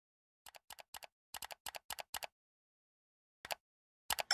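Computer-keyboard typing sound effect: a run of about seven quick keystrokes over two seconds. After a pause come mouse clicks, a single one and then a quick pair near the end.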